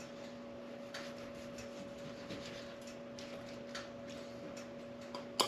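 Chef's knife slicing a cooked caribou roast thin on a plastic cutting board: soft, irregular clicks and taps of the blade on the board, with a sharper knock near the end. A steady low hum runs underneath.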